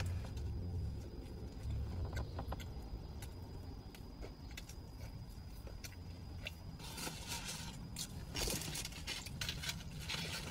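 Quiet chewing of a spicy chicken biscuit sandwich over a low steady car-cabin hum, with faint clicks. Bursts of crinkling food packaging come about seven seconds in and again near the end.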